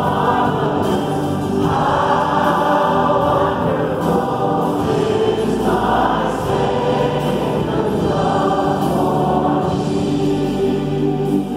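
Church congregation singing a worship song with the worship team and band on stage, in sustained phrases of a few seconds each with short breaks between them.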